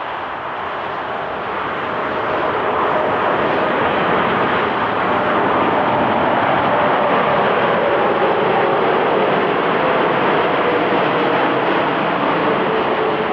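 Boeing 747-8's four GEnx-2B turbofan engines on final approach: a steady jet roar that grows louder over the first few seconds and then holds, with faint whining tones that slowly drop in pitch as the airliner passes.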